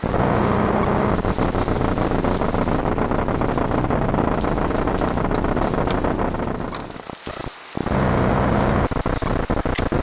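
Loud, steady crackling static from a trail camera's microphone, which the uploader puts down to the camera's low batteries. It drops out briefly about seven seconds in.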